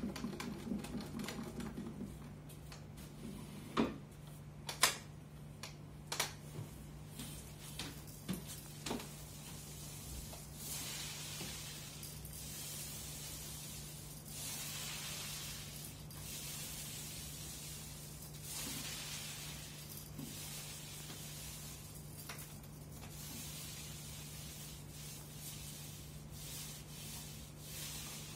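Short-nap paint roller on an extension pole rolling emulsion paint onto a wall for the first coat. After a few sharp knocks and clicks in the first several seconds as the roller is loaded, it makes a sticky hiss that swells and fades with each long stroke.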